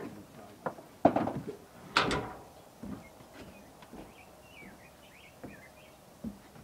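Two sharp knocks about a second apart, like a door banging or something wooden struck, then a few softer knocks, with a bird chirping faintly in the middle.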